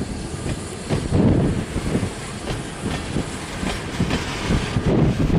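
Freight train passing close by: loaded grain hopper cars rolling on broad-gauge track, their wheels clattering on the rails in uneven bursts, loudest about a second in and again near the end.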